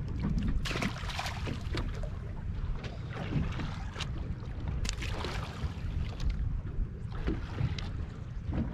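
Wind rumbling on the microphone aboard a fishing boat at sea, with a few short knocks and clatters on deck.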